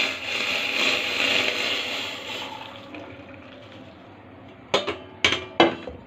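Hot kahwa poured from a steel pot through a mesh strainer into a cup, the stream running and tapering off over about three seconds. Near the end, three sharp clinks of the metal utensils.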